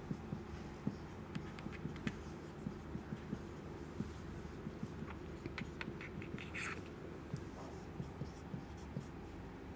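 Marker pen writing on a whiteboard: irregular light taps and short squeaky strokes as letters are drawn, with a longer scratchy stroke about six and a half seconds in.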